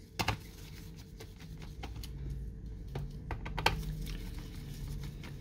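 Scattered light clicks and taps of a tool on a laptop's plastic case as its back cover screws are removed, over a faint low hum.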